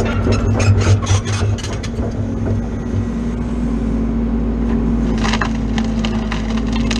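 Excavator engine and hydraulics running with a steady hum while the RAC 08 stump shear grips and tears roots out of a stump pile: wood cracking and splintering in a quick run of snaps through the first second and a half, then another cluster of cracks about five seconds in.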